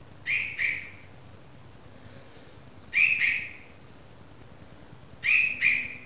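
Newly fledged red-vented bulbul chick calling: three calls about two and a half seconds apart, each a quick pair of notes.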